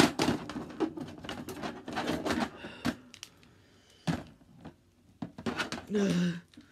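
Plastic wrestling action figures being worked by hand in a toy ring: a run of irregular clicks, taps and knocks as they hit the ring mat and ropes, busiest in the first half. A short vocal sound near the end.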